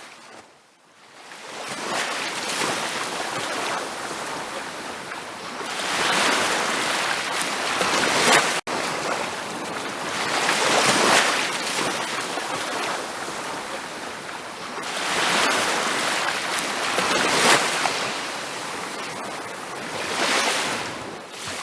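Ocean waves breaking on a beach, washing in and out in slow surges every few seconds. The sound cuts out for an instant about a third of the way through.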